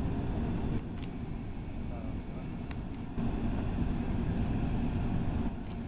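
A steady low outdoor rumble with faint distant voices. The level steps down abruptly about a second in, back up near three seconds, and down again near the end.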